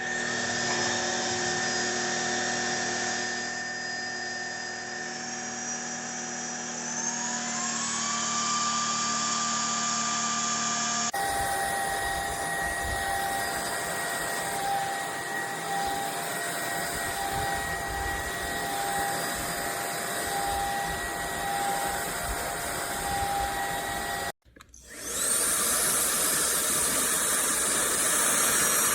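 Trucozie cordless stick vacuum running with a steady high whine. Its pitch steps up about a quarter of the way in. Near the end the motor stops abruptly, then spins back up to speed.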